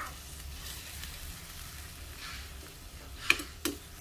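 Chicken strips and tofu frying in homemade teriyaki sauce in a pan, a steady faint sizzle. A little after three seconds in, a metal spoon knocks against the pan twice.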